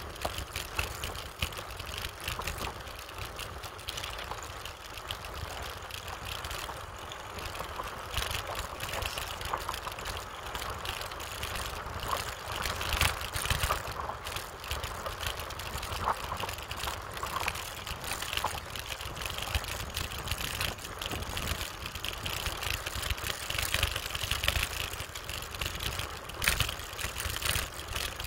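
Wind buffeting the microphone of a phone mounted on a moving bicycle, a steady rumbling rush, with frequent small rattles and clicks from the bike on the road surface.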